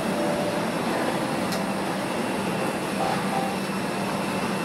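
Steady hum and hiss of an Airbus A320's cabin ventilation while the aircraft sits parked at the gate, with faint murmur of passengers and one light click about a second and a half in.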